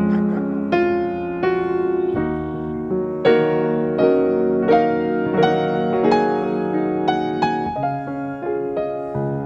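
Background piano music: a slow, gentle piece of single struck notes and chords, a new note about every half to three-quarters of a second.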